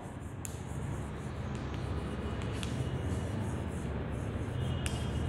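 Chalk writing on a blackboard: faint scratching strokes with a few light ticks, over a steady low room hum.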